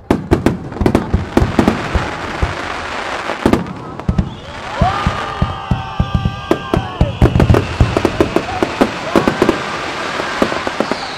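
Aerial fireworks shells bursting in rapid succession, many sharp bangs close together. From about four seconds in, several whistles rise in pitch and hold over the continuing bangs.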